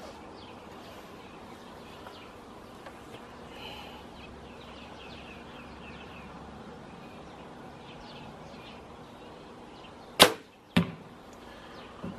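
Archery shot: two sharp cracks from a bow and arrow a little over half a second apart about ten seconds in, over faint chirping.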